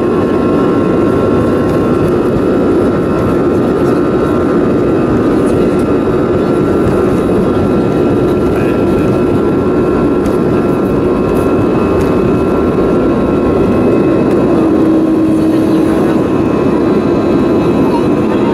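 Jet airliner's underwing turbofan engines at takeoff thrust, heard from inside the cabin: a loud, steady roar with a high whine held at constant pitch through the takeoff roll and lift-off.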